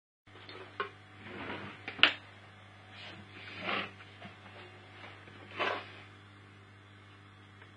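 Handling sounds: a few sharp clicks, the loudest about two seconds in, and several short rustles over a steady low hum.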